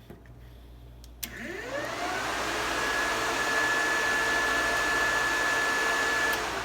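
A click about a second in, then two 10-inch electric radiator push fans spin up with a rising whine and run steadily with a loud rush of air, switched on by turning their adjustable thermostat down. They cut off near the end.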